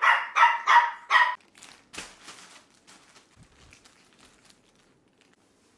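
A small dog barking: four quick, high barks in the first second and a half.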